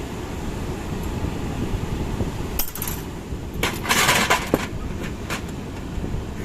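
Metal engine parts and tools clinking, with a short scraping rustle about halfway through, over a steady low rumble.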